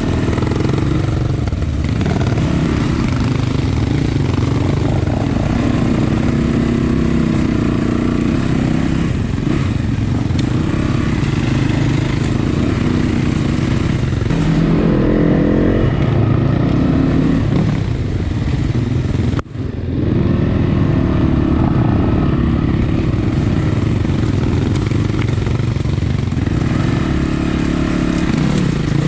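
Off-road motorcycle engine running under changing throttle while riding, its pitch rising and falling, over a steady rush of noise. There is one very brief drop-out about twenty seconds in.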